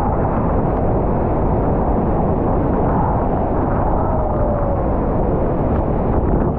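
Steady, loud roar of Niagara Falls' water plunging down, a deep even rushing noise.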